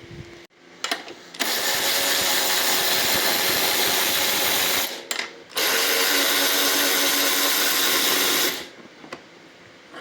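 Small cordless electric ratchet spinning fasteners, run in two steady bursts of about three seconds each with a short pause between, a few clicks just before the first.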